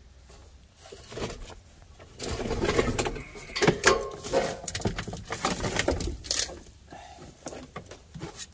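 Scrap metal parts and junk being shifted and rummaged through by hand, with scattered clanks, knocks and rattles, growing busier about two seconds in.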